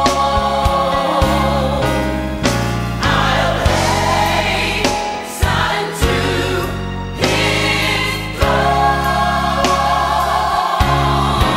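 Gospel music: a choir singing a slow hymn over instrumental accompaniment with sustained bass notes.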